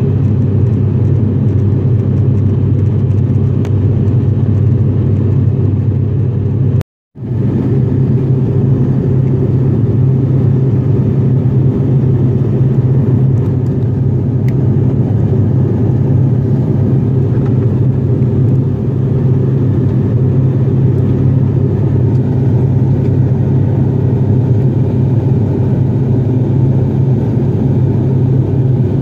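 Steady low drone of an ATR 42-500's twin turboprop engines and propellers in flight, heard from inside the passenger cabin. It cuts out for a split second about seven seconds in, where the recording is cut.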